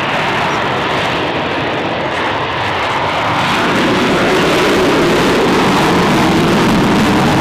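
The Shockwave jet truck's three jet engines running at full power on a speed run, afterburners lit. A loud, steady rushing noise that grows louder about halfway through.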